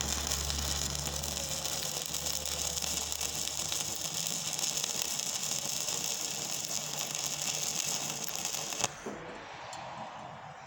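Stick-welding arc of a 3/32-inch E6013 rod on DC electrode positive at 45 amps, running a bead on 1/16-inch mild steel tubing with a steady crackle. The arc breaks off sharply about nine seconds in.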